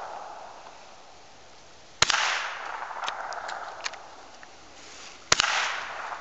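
Two shots from a scoped semi-automatic .22 Long Rifle rifle, about three seconds apart. Each is a sharp crack followed by an echo that dies away over a second or two.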